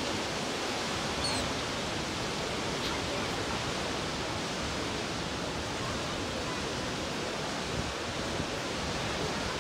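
Steady rush of a large cruise ship's wake churning and foaming behind the stern.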